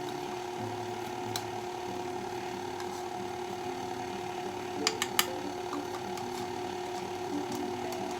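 A steady mechanical hum from a kitchen appliance, with a few light clicks of a measuring spoon against the bowl, two close together about five seconds in, while baking soda is measured into the dry ingredients.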